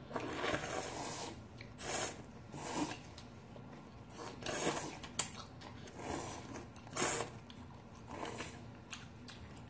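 Two people slurping ramen noodles from bowls of broth in a run of short, noisy slurps, roughly one a second.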